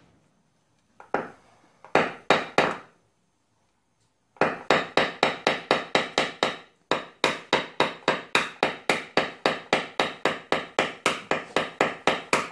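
Small hammer rapidly tapping a tap-down punch held against the car's steel roof panel, in quick even runs of about five light strikes a second with two short pauses early on: knocking down the raised high spots around a hail dent in paintless dent repair.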